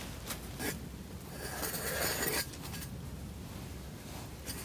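Small sharp clicks and a short rustle of hands working in potting mix and seedling trays while sowing pepper seeds: two clicks in the first second, a scratchy rustle about two seconds in, and a faint click near the end.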